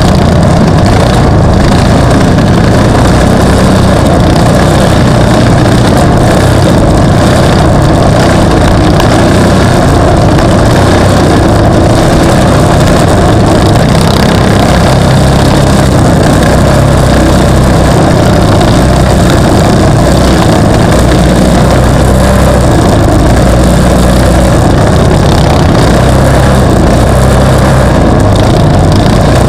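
Off-road racing vehicle engine running continuously, very loud and even throughout, with a heavy low rumble.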